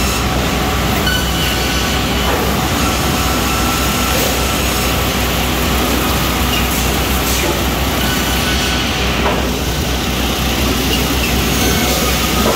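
Sawmill chain transfer conveyors and line machinery running, carrying wooden cants toward a multi-rip saw: steady, loud mechanical noise over a constant low hum.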